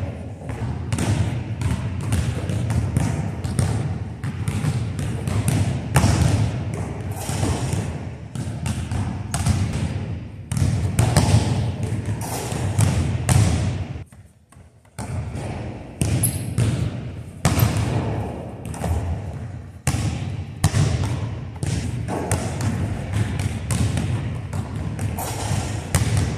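Basketball bouncing and being dribbled on a hardwood gym floor: a run of irregular thuds, broken by a brief gap about halfway through.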